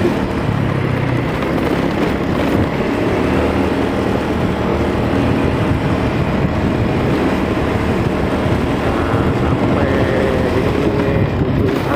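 Motorcycle running steadily on the road while riding, its engine mixed with wind noise on the microphone.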